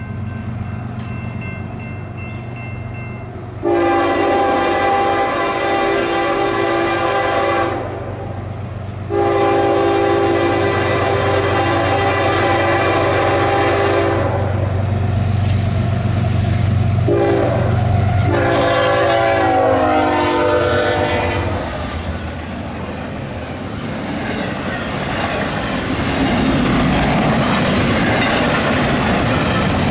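Norfolk Southern freight locomotive's air horn sounding four blasts, long, long, short, long, the grade-crossing signal, with the pitch falling during the last blast as the engine passes. The double-stack intermodal cars then rumble and clatter by over the rail joints, with the diesel engines droning underneath.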